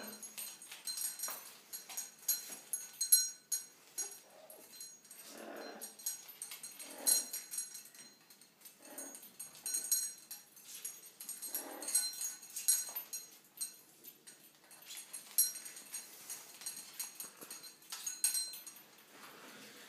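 Amazon parrot climbing on a hanging metal ring toy, the rings and small bell clinking and rattling throughout. About five short, soft calls from the parrot come between the clinks.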